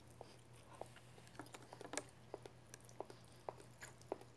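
A person chewing a mouthful of food, faint, with soft irregular mouth clicks and smacks about two or three times a second.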